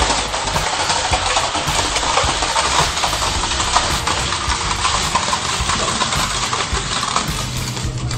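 Hydraulic press crushing a stack of plastic pieces: continuous crackling and snapping as the plastic breaks and shards fly off, over the steady drone of the press's hydraulic pump.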